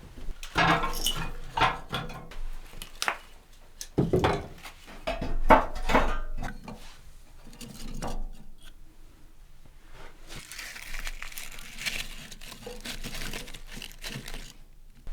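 Objects being handled indoors: irregular knocks and clatter, then several seconds of steady crinkly rustling.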